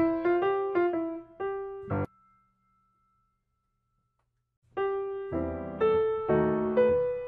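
Background piano music, a melody of single struck notes that breaks off about two seconds in; after a gap of silence of a couple of seconds the piano starts up again.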